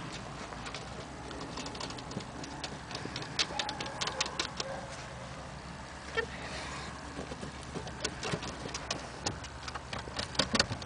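A string of sharp taps and clicks, coming in clusters, with a quick, louder run of them near the end: a Shar-Pei's paws and claws striking the boards of a wooden dog-agility A-frame.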